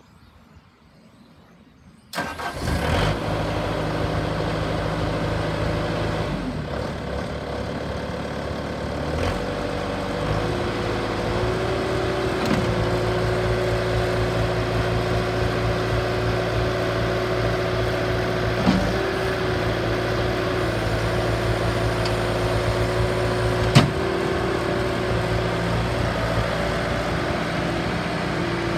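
Bobcat S300 skid steer loader's diesel engine starting up about two seconds in, then running steadily, its pitch shifting slightly a few times. A single sharp click sounds near the end.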